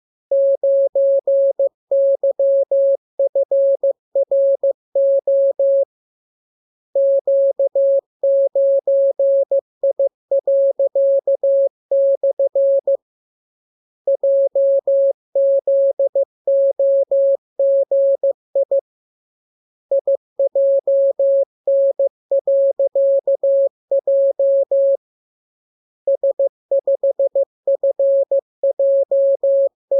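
Morse code sent as a single steady beep tone keyed on and off in dots and dashes. The characters come in groups of several, each group followed by a pause of about a second, as in a practice radiogram for receiving by ear.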